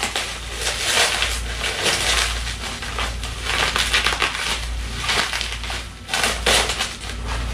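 Packaging being crumpled and torn open by hand, in irregular crinkling bursts, as a food container is unwrapped.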